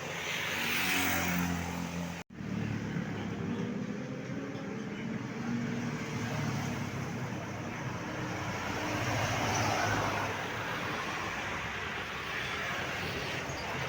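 Road traffic: vehicle engines running with steady road noise, the sound cutting out for an instant about two seconds in.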